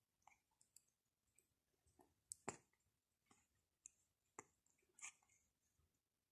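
Near silence broken by faint, scattered clicks and soft rustles as a cat paws at the string of a wand toy on a rug. The clearest click comes about two and a half seconds in.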